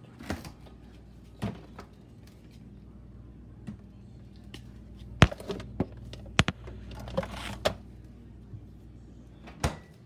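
Refrigerator door pulled open, then sharp knocks and clicks as bottles and shelf items are bumped while a key card is set inside, the loudest about halfway through; the door shuts with a knock near the end. A steady low hum runs underneath.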